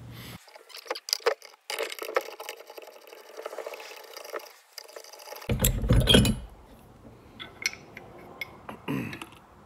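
Metal clinking and scraping as the compressor housing of a turbocharger with a burst compressor wheel is worked loose and lifted off, with a loud clunk about six seconds in and scattered clicks after it.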